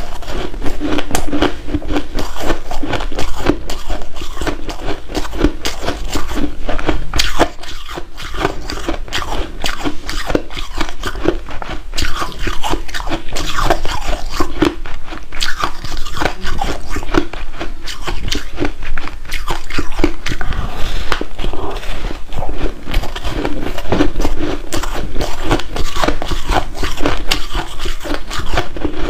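Loud biting and chewing of a chunk of white snow ice, a dense unbroken run of crisp crunches.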